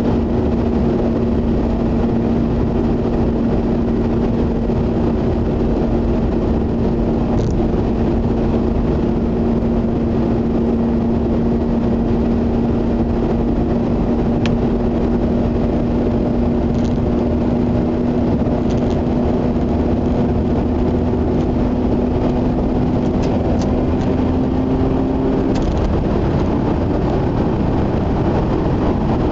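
Mazda RX-8 cabin at motorway cruise: the steady hum of its twin-rotor rotary engine over tyre and road rumble. The engine's held tone creeps slightly higher, then drops away near the end, with a few faint ticks of cabin rattle.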